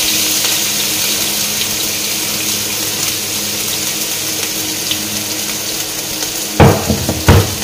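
Ground spice paste and lemongrass frying in hot oil in a wok, a steady sizzle. Near the end come two loud knocks, under a second apart.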